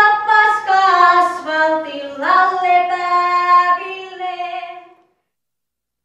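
A woman singing a slow melody with long held notes, a single voice with no instrument heard. The singing fades out about five seconds in.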